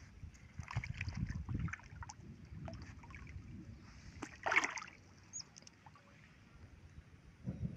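Shallow ditch water splashing and sloshing as an otter enters and swims, with one louder splash about four and a half seconds in.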